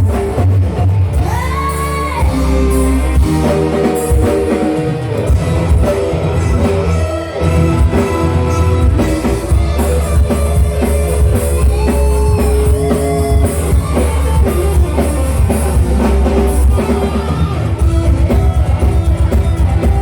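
Live dangdut band music, loud, with a steady heavy drum beat, held instrument notes and a singing voice; the beat turns quicker and sharper near the end.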